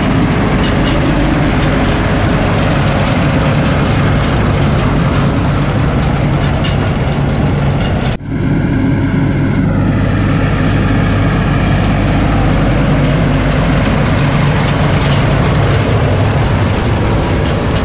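Massey Ferguson tractor's diesel engine running steadily while pulling a Vermeer 504M round baler in the field, with the baler's machinery working. The sound dips briefly about eight seconds in, and shortly after, the engine's pitch falls a little.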